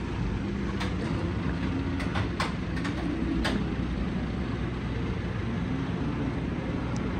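Livestock truck's diesel engine idling steadily, with a few sharp knocks and clatters between about one and three and a half seconds in.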